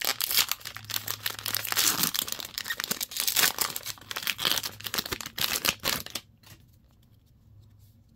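The foil wrapper of a Magic: The Gathering collector booster pack being torn open and crinkled by hand. The crackling stops about six seconds in.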